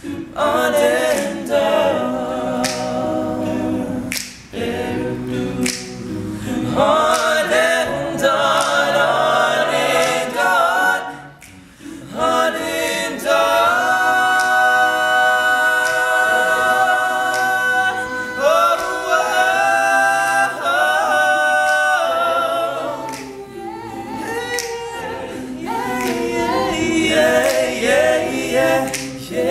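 All-male a cappella group singing in close harmony, several voices at once with no instruments. Long chords are held steady through the middle, after a brief drop in the sound about eleven seconds in.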